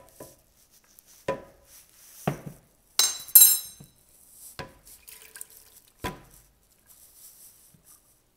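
Cookware knocking and clinking while soaked wheat and lentils are tipped from a wooden bowl into a pan of water: about six separate sharp knocks, the loudest a pair of ringing clinks about three seconds in.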